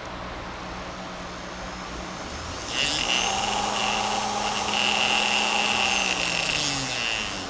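A small electric motor tool, worked by a foot pedal, spins up about three seconds in and runs with a steady high whine. It then winds down, falling in pitch, near the end. A low steady hum runs underneath throughout.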